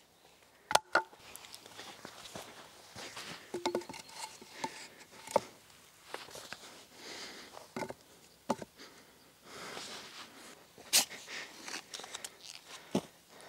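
Scattered sharp wooden knocks and clacks among rustling and shuffling steps on leaf-littered forest soil, as wooden poles and hand tools are handled.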